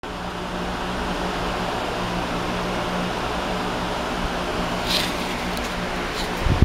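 2005 Suzuki GSX-R750 inline-four engine running at a steady idle, with a brief low thump near the end.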